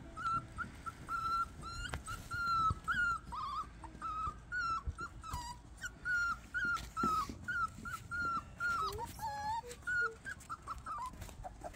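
Beagle puppies whimpering: a rapid series of short, high-pitched whines, about two to three a second, some sliding up or down.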